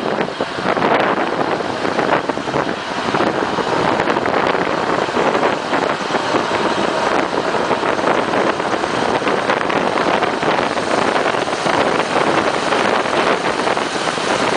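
ALn668 diesel railcar running along the track, heard from an open window: a steady, loud rush of engine and wheel noise with wind buffeting the microphone.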